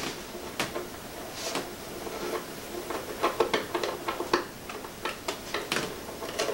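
Irregular light clicks and taps of fingers working small plastic parts on an RC model biplane's fuselage.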